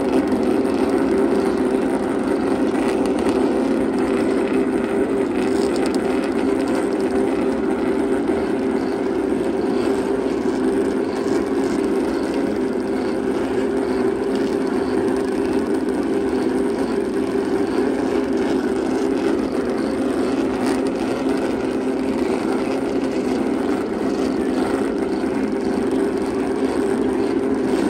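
A row of race snowmobiles idling together on the start line, their engines blending into one steady running sound with no breaks.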